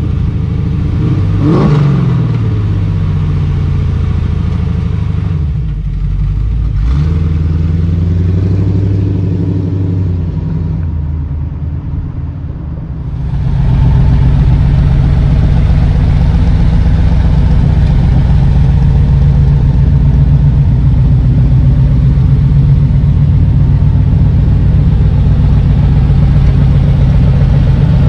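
Fuel-injected Chevrolet LT1 5.7-litre V8 running through headers and side-exit exhaust. It is revved a few times in the first half, the pitch climbing and dropping, then from about halfway through it runs at a steady idle, louder and even.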